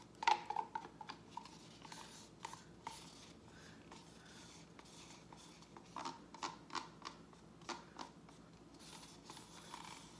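Soft, scattered clicks and scrapes of thin plastic cups being handled while the last orange acrylic paint is poured and scraped from one cup into another. The clicks come in bunches near the start, about six seconds in, and near the end.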